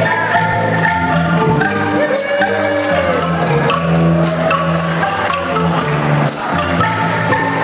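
Angklung ensemble playing a tune: tuned bamboo tubes shaken in frames, giving rattling sustained notes and chords over low bass notes.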